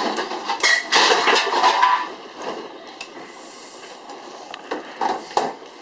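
Refrigerator being pulled out from the wall, its rollers rumbling and scraping across the floor for about two seconds, followed by a couple of short knocks near the end.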